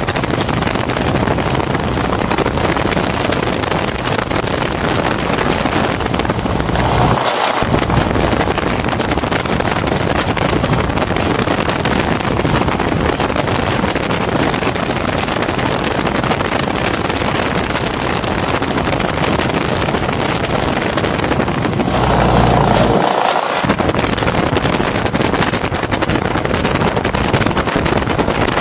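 The MiniMax ultralight's Hirth F-33 single-cylinder two-stroke engine and propeller running steadily as the aircraft taxis on grass, heard from the pilot's seat with wind noise on the helmet microphone.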